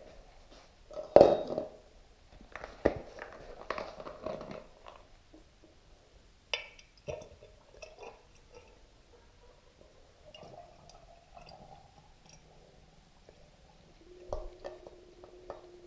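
A plastic bottle of fork oil crinkling and knocking as it is handled and tipped, while the oil is poured through a plastic funnel into a motorcycle fork tube. The sharpest knocks come about one and three seconds in.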